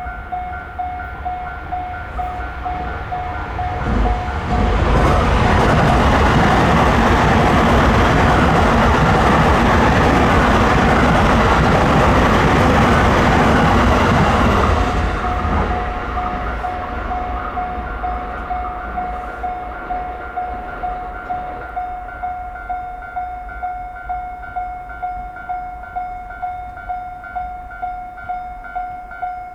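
Japanese railway level-crossing electronic warning bell sounding a steady, evenly repeating tone, with a train passing over the crossing from about four seconds in. The train's loud roar drowns the bell until it fades after about fifteen seconds, and then the bell rings on alone.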